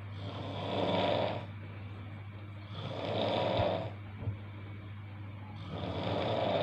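A person snoring loudly: three long, rasping snores, one every two and a half to three seconds, with a steady low hum behind them.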